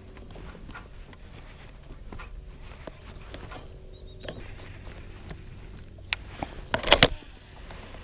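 Handling noise on a fishing kayak: small scattered clicks and knocks, with a short cluster of sharp, louder knocks about seven seconds in.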